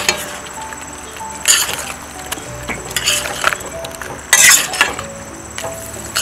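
Metal spoon scraping and clinking against a stainless steel pot while basting chicken in thick curry sauce: about half a dozen short strokes, the loudest a little past the middle. Soft background music plays throughout.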